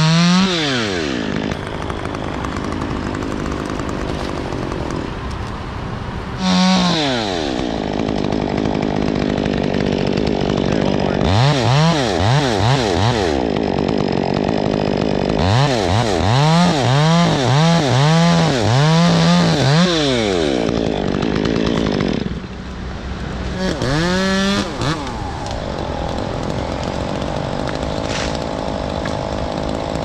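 Two-stroke chainsaw idling between short revs of the throttle, with a run of about five quick revs in the middle.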